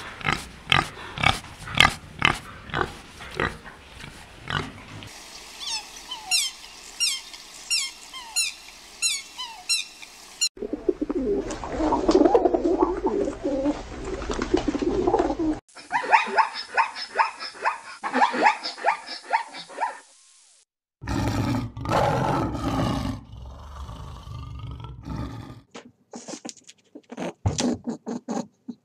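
Several short animal recordings cut one after another. First a pig slurping water from a pool in rhythmic laps, about two a second; then a few seconds of high repeated chirps; then a flock of feral pigeons cooing and shuffling; then further animal calls, ending in scattered soft taps.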